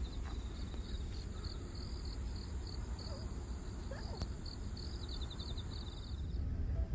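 Crickets chirping in a steady run of short, high, evenly repeated pulses over a low rumble.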